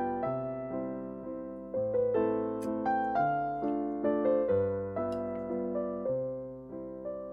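Background music: piano chords struck and fading over a bass line, changing about once a second.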